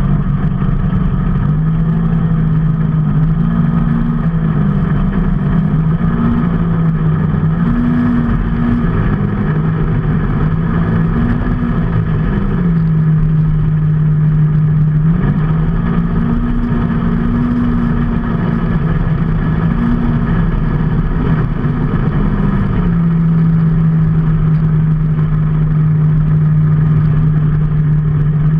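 A motor vehicle's engine running steadily while under way, its note holding level and then rising briefly and falling back several times, over constant road and wind noise.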